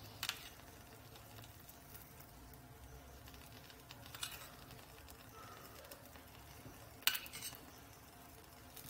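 A metal spoon clinks and scrapes lightly against a bowl while a creamy mixture is spooned out. There are three short clinks, the loudest about seven seconds in.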